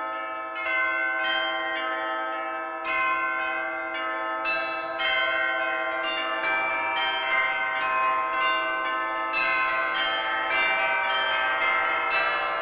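Church bells ringing, a run of strikes about two a second, each one ringing on under the next.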